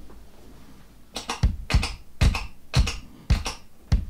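Drum-machine beat from a TC-Helicon VoiceLive 3 Extreme processor's built-in rhythm, starting about a second in. It is a steady pattern of low kick-drum thuds and sharper, higher drum hits.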